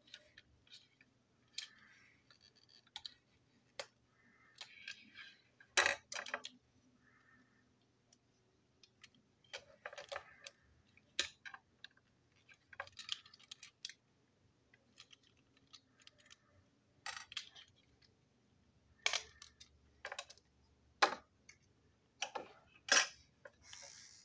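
Small plastic toy-train parts, metal wheels and a screwdriver being handled and set down on a hard tabletop: scattered clicks and knocks, with a few louder knocks about six seconds in and near the end.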